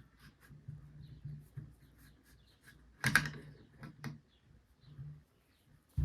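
AR-15 parts being handled: small metallic clicks and taps as the bolt carrier group is slid out of the upper receiver, with one louder metal clack about three seconds in.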